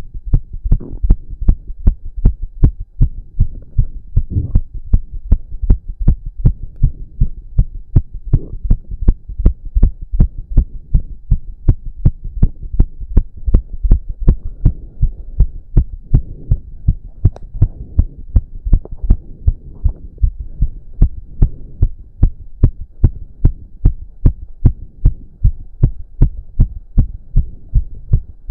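A man's heartbeat after exercise, beating fast and evenly, each beat a deep thump.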